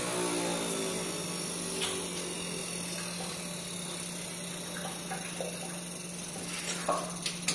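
Hamilton Beach centrifugal juicer's motor spinning down after it has been switched off: a whine that falls in pitch and fades over the first second or two. A few light clicks and knocks come near the end.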